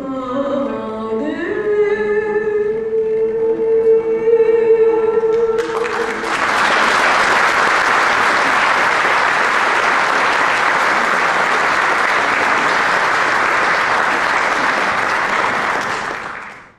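A woman singing the final long held note of a Turkish classical song in makam Mâhur, with the ensemble. About five and a half seconds in, the audience breaks into applause all at once, which carries on steadily and fades out at the very end.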